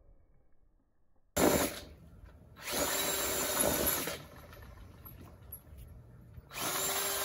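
Power drill spinning a paint-covered spin-art canvas in short runs. After a near-silent start there is a sudden brief burst, then two steady runs of about a second and a half each with a faint whine. The second run starts near the end.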